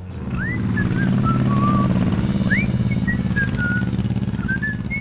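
A low, rapidly pulsing engine-like hum that swells over the first second and then holds steady, with short high whistled notes gliding up and falling over it in two phrases.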